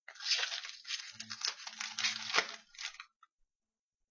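Foil wrapper of a hockey card pack being torn open and crinkled in the hands, a dense crackling that lasts about three seconds.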